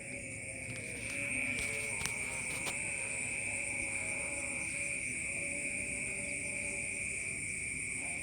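A steady, high-pitched insect chorus that grows louder about a second in, with a few faint clicks.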